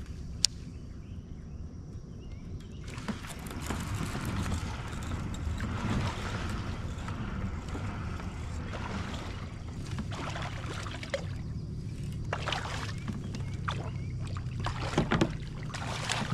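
Water slapping and splashing around a kayak, with a single sharp click just after the start. Near the end a hooked bass thrashes and splashes at the surface beside the boat, the loudest splashes in the clip.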